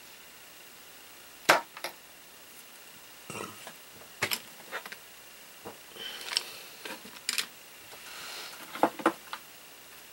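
Scattered light clicks and taps of craft supplies being picked up and handled on a work surface, likely as a glitter-glue bottle is fetched.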